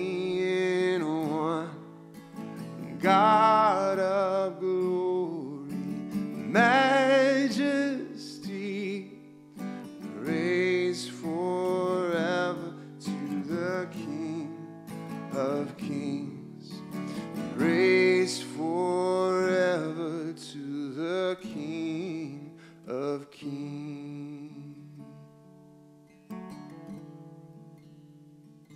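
Worship song music: acoustic guitar strumming under a sustained singing voice with vibrato. The music dies away over the last few seconds.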